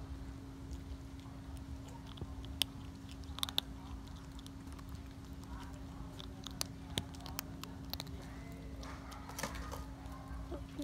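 A kitten crunching dry kibble: scattered short, sharp crunches in irregular clusters over a steady low hum.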